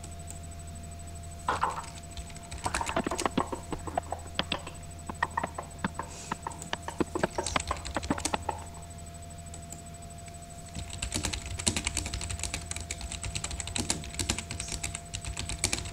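Typing on a computer keyboard: two runs of rapid key clicks separated by a pause of about two seconds.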